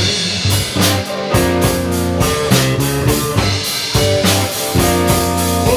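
Live blues band playing: electric guitars over a drum kit, in a steady beat.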